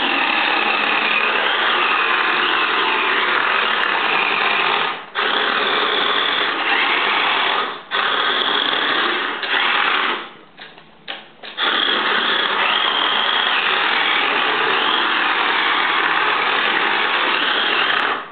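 Toy radio-controlled car with a BMW E46 body, its small electric motor and gears whining at high speed as it drifts, the pitch rising and falling. The whine cuts out briefly twice, around five and eight seconds in, and stutters on and off in the middle.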